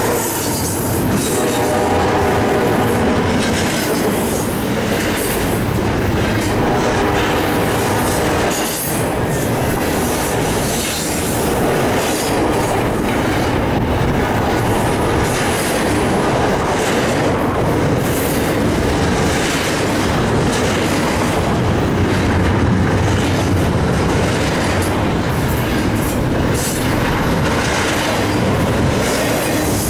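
Union Pacific double-stack intermodal freight train's container well cars rolling past at speed: a steady, loud rumble and rattle of steel wheels on the rails.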